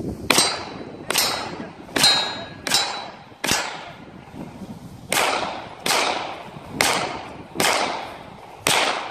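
Gunshots at a 3-gun stage: five quick shots, a pause of under two seconds while the shooter goes prone, then five more. The early shots carry a metallic ring. The shots come from a pistol and a 10.5-inch 5.56 short-barreled rifle.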